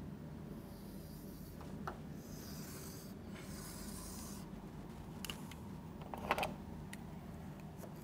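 Chalk scraping across a chalkboard as long straight lines are drawn, scratchy strokes in the first half, then a few short clicks and scrapes of the chalk.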